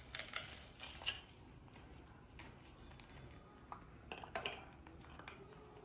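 A few light clicks and taps as a baby monkey handles fruit on a plastic plate resting on a glass tabletop, with one cluster about a second in and another around four seconds in.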